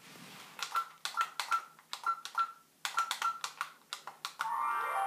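Repeated clicks of a Mustek camcorder's buttons, many with the same short electronic beep, then a longer electronic tone near the end, as the camcorder is started up.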